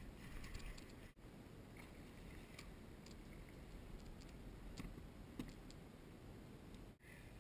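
Faint, irregular clicks and ticks over a low hiss, with two brief dropouts, about a second in and near the end.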